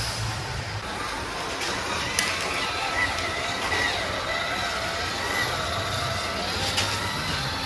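Micro-scale RC crawler's small electric motor and gearbox whining, the pitch wavering up and down with the throttle. There are a couple of sharp clicks, about two seconds in and near the end.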